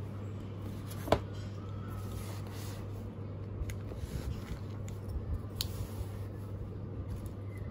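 Small items being handled and packed into a fabric tote bag on a wooden desk: light rustles and scattered taps, with one sharper click about a second in, over a steady low hum.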